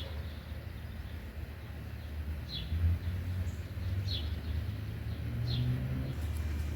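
Rain ambience: a steady low rumble under an even hiss, with a small bird giving short high chirps four times.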